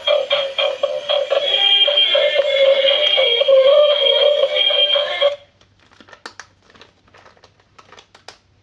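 Music with a synthetic-sounding vocal, cutting off suddenly about five seconds in, followed by a few faint clicks and taps.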